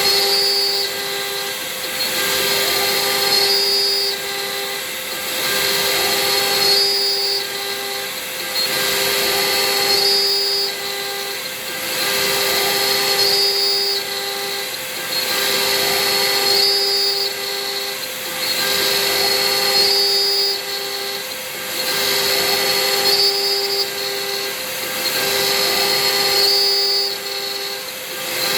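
Hobby CNC milling machine running a repeating program: the spindle hisses steadily while the axis stepper motors whine in stepped tones, the same back-and-forth pattern repeating about every two and a half seconds.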